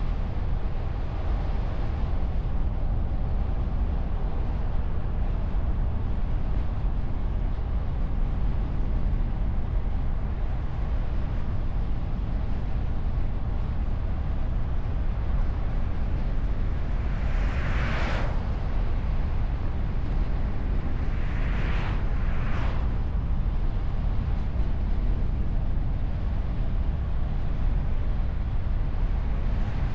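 Car driving, heard from a bonnet-mounted camera behind a wind muffler: a steady low rumble of wind and road noise. A short whoosh comes a little past halfway, and two more close together about four seconds later.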